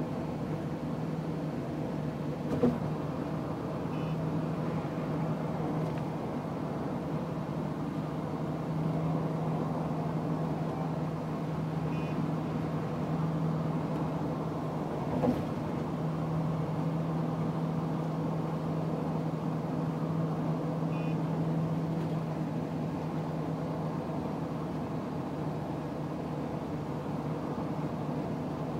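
Steady road and engine noise inside a moving vehicle's cabin, with a low steady drone. Two brief knocks come about 2.5 and 15 seconds in.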